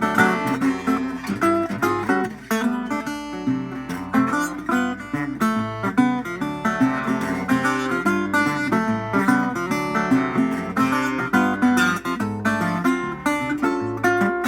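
1932 National Triolian resonator guitar being played, a tune of picked notes mixed with strummed chords. The guitar has been repaired and brought back to playing condition.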